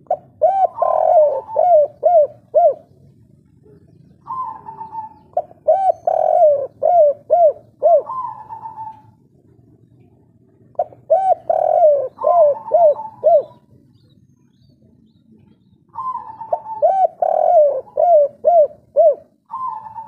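Spotted dove cooing its 'kuk 3' song. Four loud phrases come about five seconds apart, each a higher opening note followed by a quick run of lower coos.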